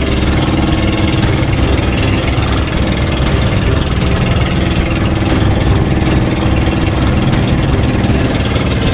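Motorized outrigger boat (banca) engine running steadily and loud, heard up close from aboard the boat.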